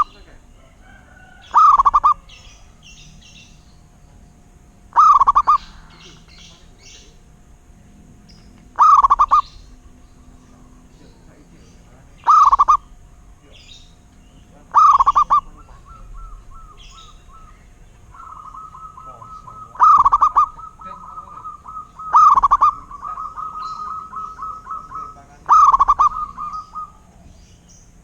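Zebra dove (perkutut) cooing: eight short, loud calls at a few seconds' interval, with quieter runs of rapid repeated notes at a similar pitch between calls in the second half.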